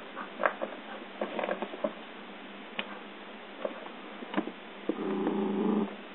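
A dog's paws and claws scrabbling and scratching at the carpet at the foot of a couch, in scattered short scrapes and clicks. About five seconds in comes a short grumbling growl, just under a second long.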